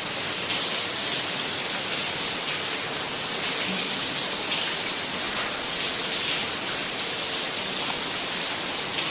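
Steady rain falling: an even hiss with scattered sharper drop impacts.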